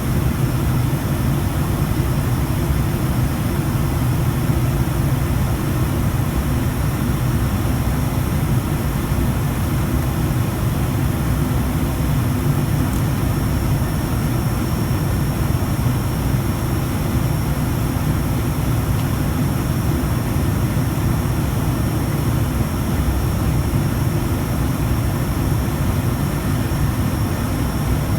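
ATR 72's twin turboprop engines and propellers running steadily, a loud, even low drone with a hiss above it.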